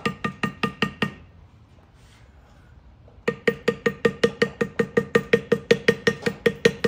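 Rapid, even taps of a mallet on a leather beveling tool, about six a second, each with a short ringing tone, as the tool bevels edges down into saddle leather. The tapping stops about a second in and starts again about two seconds later.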